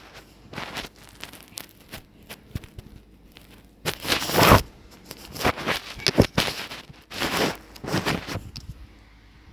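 Cats fighting each other: a run of short, harsh hisses and scuffles, loudest about four and six seconds in.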